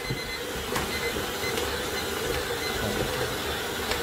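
Electric stand mixer running at second speed, its dough hook kneading stiff bread dough in a stainless steel bowl: a steady motor hum and whine, with a few faint knocks.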